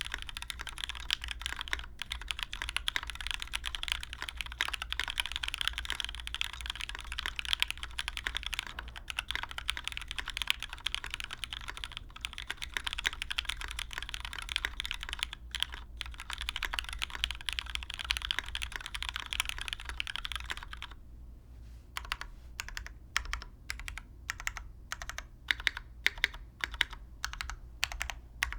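Typing on a custom mechanical keyboard with lubed Cherry MX Black linear switches in an aluminium plate, under GMK keycaps: a fast, dense run of keystrokes that stops about two-thirds of the way through, followed after a short pause by slower, separate key presses.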